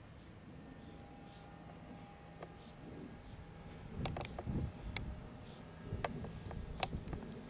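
Quiet rural outdoor ambience: a high, buzzy trill lasting about two and a half seconds and a few short high chirps, with several sharp clicks and soft thumps in the second half.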